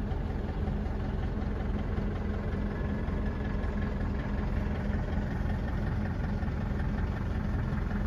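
Force Tempo Traveller's diesel engine idling, a steady low hum with an even drone, heard inside the passenger cabin.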